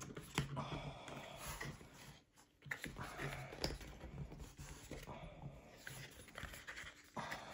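Quiet handling of thick cardboard game pieces: light clicks and soft scraping as printed cardboard walls are fitted and pushed into their slots, with the pieces refusing to seat easily.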